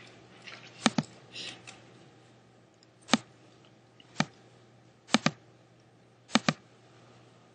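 Sharp computer mouse clicks: a pair about a second in, single clicks around three and four seconds, then two quick double-clicks. A faint steady hum runs underneath.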